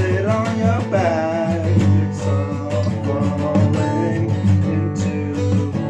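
Rock song playing: strummed acoustic guitar over a steady bass line, without clear sung words.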